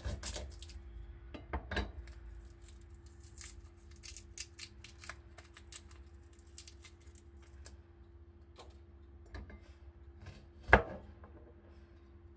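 Kitchen handling sounds: scattered light clicks and taps of utensils and dishes, with no steady chopping rhythm, and one sharp knock near the end, over a faint steady hum.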